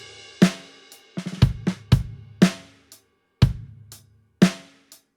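Basic drum-kit loop in a slow groove: kick, snare and cymbal hits about every half second, played dry, before any reverb is added.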